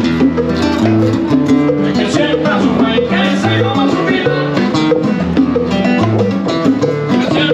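Live Latin band playing: conga drums and a nylon-string acoustic-electric guitar in a salsa-style tune over a steady, stepping bass line.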